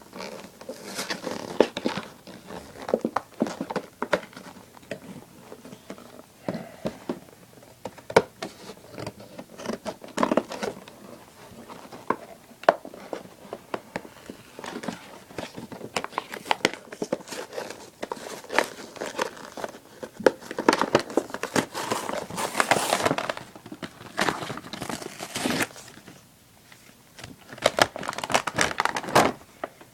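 A wrestling action figure being unboxed by hand: plastic and cardboard packaging crinkling, tearing and rustling in irregular bursts, with sharp snaps throughout.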